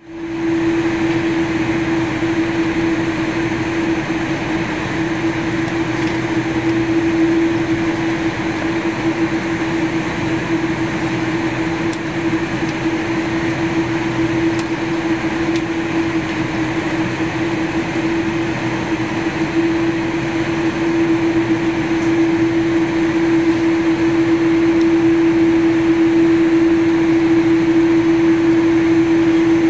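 Jet airliner cabin ambience: the steady rush of the cabin air system under a constant droning hum, growing slightly louder over the last few seconds.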